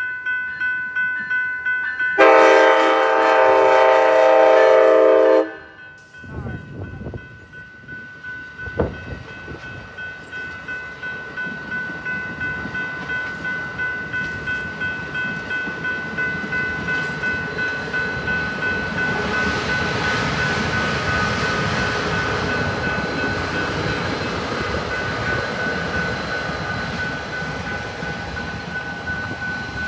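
A grade-crossing bell rings with a steady, rapid beat throughout. About two seconds in, the leading cab car sounds one long horn blast of about three seconds. The bilevel Capitol Corridor train then rolls past with rising wheel-on-rail noise that is loudest in the second half, when the trailing SC44 diesel locomotive comes by.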